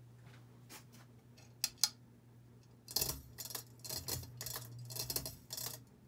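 Hunter Discovery 48-inch ceiling fan running with a low, steady motor hum. A few light clicks come early, then a quick run of louder irregular clicks and ticks from about three seconds in.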